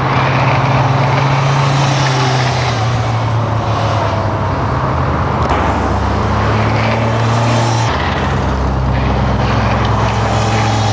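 Kawasaki ZZR1100 sports bike's inline-four engine running at fairly steady revs while cornering, its pitch stepping about eight seconds in.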